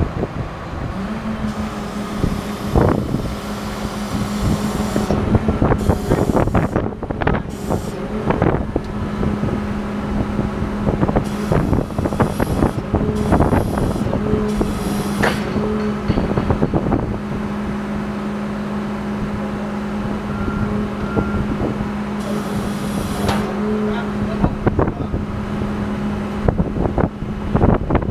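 Heavy machinery engine running steadily with a constant low hum, with scattered metallic knocks and clanks and wind noise on the microphone.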